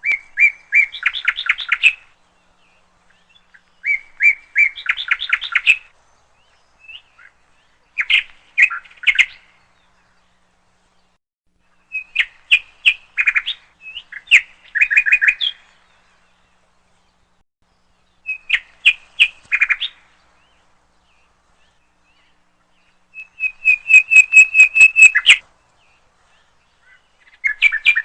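A songbird singing close by in short phrases of rapid, high-pitched notes, each phrase lasting about two seconds, with pauses of a couple of seconds between them.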